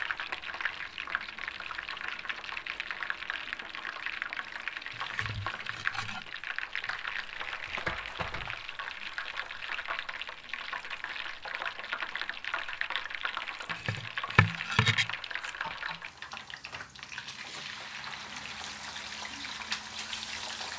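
Whole mojarra fish frying in hot oil in an enamel pan: a steady crackling sizzle. A few dull knocks come through it, with a louder sharp clank about fourteen seconds in as the golden-fried fish are lifted out with a metal spoon.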